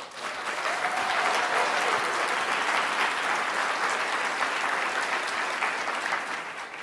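Audience applauding steadily, rising in at the start and holding for several seconds until the speaker goes on.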